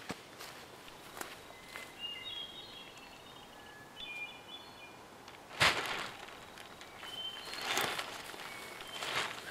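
Footsteps on the forest floor and rustling of a blanket being straightened on the ground, with a sharp rustling thump about five and a half seconds in as the loudest sound. A small songbird sings a few short high chirps a couple of seconds in and again near the end.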